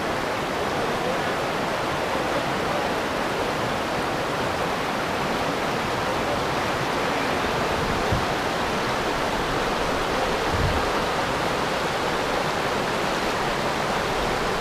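River rapids: white water pouring over a wide, low cascade, making a steady, even rush.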